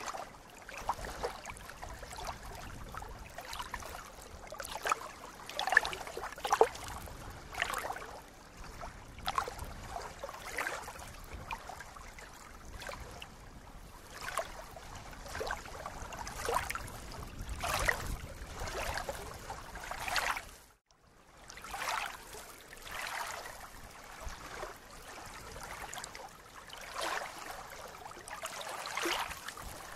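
Small waves lapping and splashing against a reedy lakeshore, an irregular run of little splashes every second or so. The sound drops out briefly about two-thirds of the way through.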